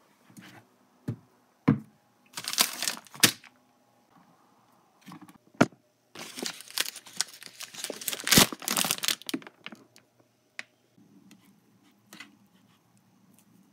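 Plastic food packaging crinkling and tearing in two bursts of handling as a packet of sliced turkey is opened, with a few sharp knocks against the counter. After that, only light handling of the slices.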